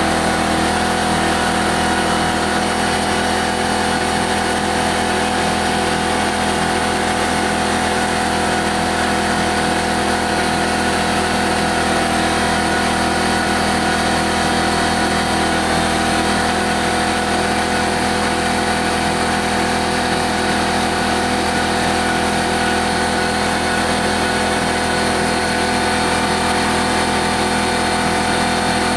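CNC 3020 router's 800 W spindle, spinning a 0.093-inch four-flute end mill at about 20,000 rpm, facing a 1-inch round bar of 6061 aluminium. A loud, steady spindle whine mixed with the noise of the cut, unchanging throughout.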